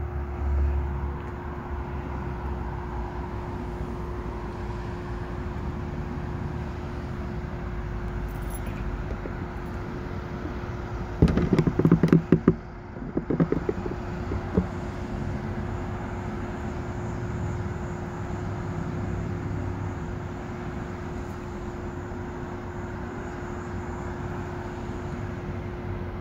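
Steady outdoor rumble of traffic with a constant low hum, broken about eleven seconds in by a few seconds of loud clattering knocks, with a couple more a little later.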